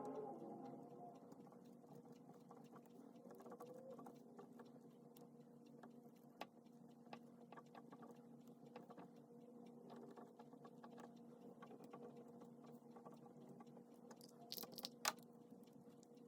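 Faint scratching and light tapping of a pen writing on paper during handwritten copying, over a steady low hum. A brief cluster of sharper clicks comes near the end.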